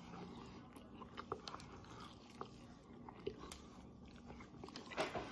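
A person eating pasta straight off a plate with the mouth, no hands: faint scattered mouth clicks and chewing as the face works at the plate, with a brief louder rush of noise near the end.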